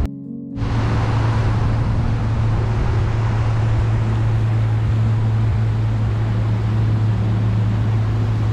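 A pontoon boat's motor running steadily under way, a constant low hum mixed with rushing wind and water noise. It cuts in about half a second in, after a short dip.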